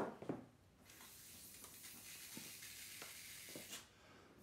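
Ink blowpipe blown by mouth, spraying ink onto paper: a steady hiss of air and spray lasting about three seconds that stops shortly before the end. A brief knock comes at the very start.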